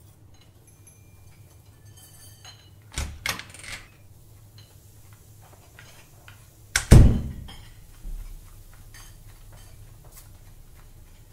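A few sharp clicks about three seconds in, then, about seven seconds in, a heavy thud with a short low ring as a wooden door is shut hard.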